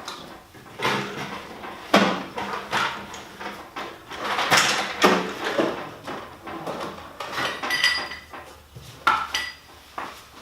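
Pry bar working a metal power-drill casing loose: irregular scraping, clicks and knocks of metal on metal, with a hard strike about two seconds in and a few brief ringing clinks near the end.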